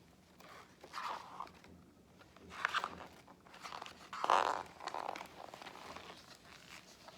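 Paper rustling as a picture book's pages are handled and turned: several short bursts of rustling and sliding, the loudest about four seconds in.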